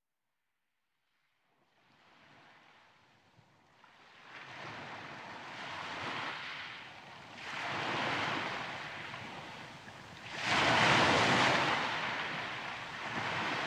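Sea waves washing onto a shore, fading in from silence and swelling and falling back several times, the biggest surge about ten and a half seconds in. Music starts right at the end.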